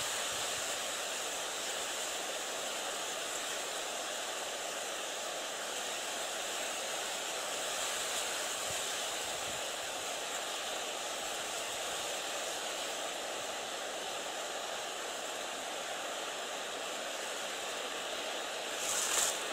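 Steady outdoor hiss of wind over open water, with no distinct events.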